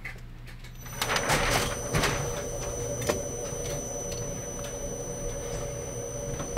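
Electric target carrier running along its overhead rail, sending the paper target back downrange: a steady mechanical whir with a high-pitched whine that starts about a second in. A sharp click right at the end.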